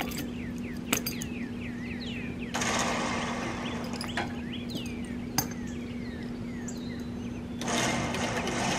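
Steel chain clinking a few sharp times as it is hooked around a log, with two stretches of rushing noise. Birds chirp throughout over a steady low hum.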